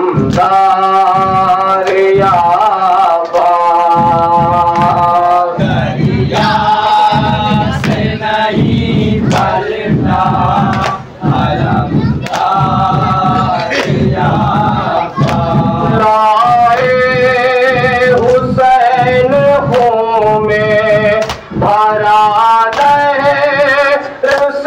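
Men singing a Shia noha lament through a microphone, with the crowd joining in. Through the middle stretch the mourners beat their chests (matam) in a steady rhythm under the singing.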